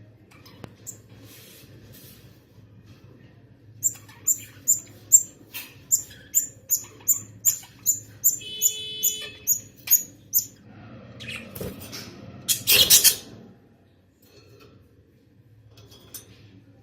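Budgerigar chick cheeping: a run of short, high-pitched chirps at about two and a half a second, over a low steady hum. A brief louder noise follows near the end.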